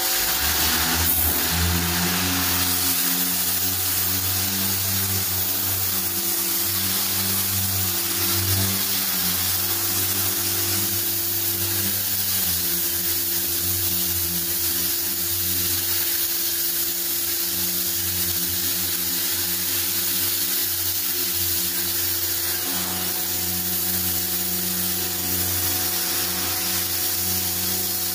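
Kärcher K3.91 electric pressure washer running steadily: its motor and pump hum under the hiss of the water jet blasting against a garage door.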